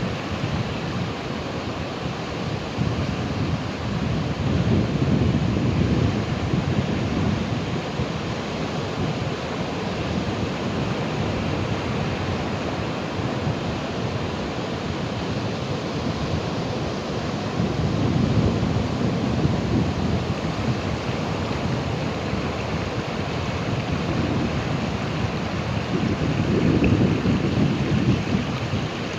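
Sea waves rolling in and washing on the shore: a continuous deep surf noise that swells louder in surges about five seconds in, around twenty seconds and near the end.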